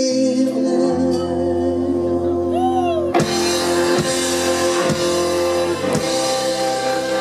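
Live blues-rock band with electric guitar, upright bass and drum kit holding out the song's closing chord, with four heavy band accents about a second apart from about three seconds in, as the song's big finish.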